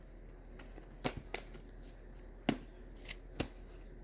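Tarot cards being handled and shuffled: a handful of sharp, separate slaps and flicks of cards, about five in all.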